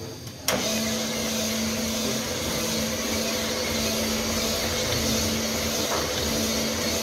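Electric cylinder-honing machine switched on about half a second in, then running steadily with a constant hum as it polishes a tractor engine's cylinder bore.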